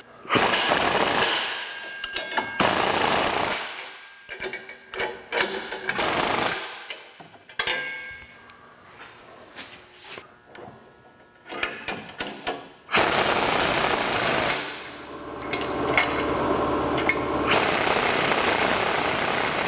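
Pneumatic impact wrench hammering in repeated bursts of a second or two, with short pauses between, as it runs bolts and self-locking nuts down tight; the longest run comes in the last third.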